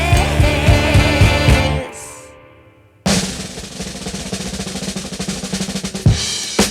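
Background music with drums. It fades out about two seconds in, and after a second's gap a fast snare drum roll starts abruptly.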